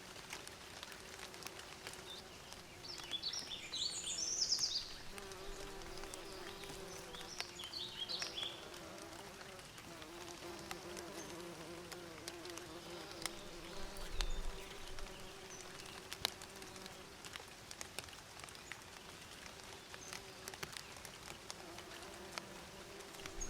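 Bees buzzing in a steady, wavering hum, with short bird chirps about three seconds in and again about seven seconds in.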